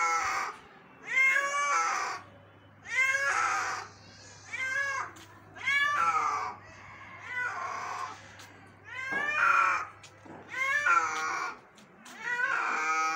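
Domestic cat meowing loudly over and over: about ten drawn-out calls, each arching up and back down in pitch, roughly one every second and a half.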